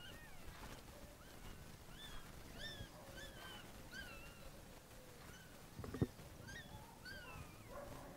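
Newborn puppies crying: faint, repeated short high-pitched cries, each rising then falling, about one or two a second. A single thump about six seconds in.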